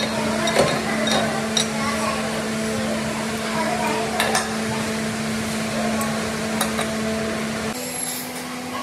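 Steady machine hum from workshop machinery, with a few sharp metal clinks as a cast-iron brake disc is clamped in a lathe chuck with a chuck key. The hum's pitch steps up slightly near the end.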